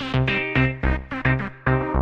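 Electronic background music with a steady beat, about three notes a second.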